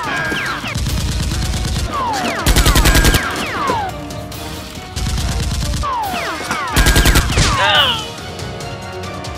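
Dubbed machine-gun sound effects: short bursts of rapid automatic fire about every four seconds, each followed by falling whistle-like tones, over background music.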